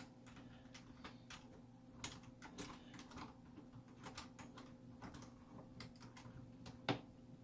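Faint, irregular small metallic clicks and ticks as the wing nut of a portable door lock is tightened down by hand, with one sharper click near the end. A steady low hum runs underneath.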